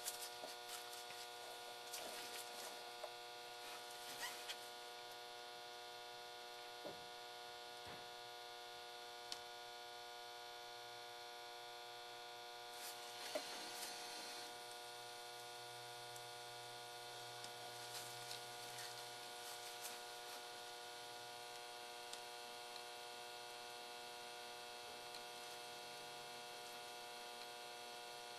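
Steady electrical hum with a stack of high steady tones, and a few faint clicks and taps, mostly in the first half, from hands working on a circuit board with a soldering iron.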